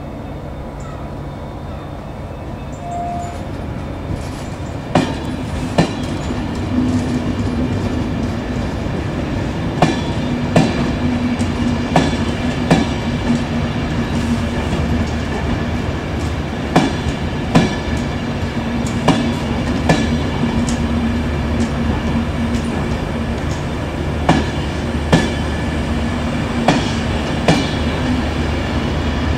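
Enterprise De Dietrich passenger coaches pulling out and rolling past. Their wheels clack over rail joints in pairs (the two axles of each bogie) every few seconds, over a steady rumble that grows louder.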